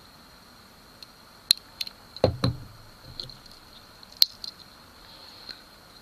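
Victorinox Swiss Army knives being handled: scattered sharp clicks of tools and scales, with the loudest a double snap a little over two seconds in, typical of a folding tool closing against its backspring.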